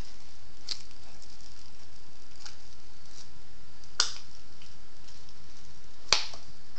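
Short, sharp metal clicks as a socket is pushed down by hand onto a valve spring retainer on an aluminium cylinder head to seat the valve keepers: a few faint clicks, then two louder ones about four and six seconds in.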